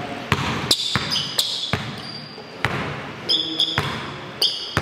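A basketball bouncing hard on a court in uneven thuds during live play, with several short, high squeaks of sneakers on the floor.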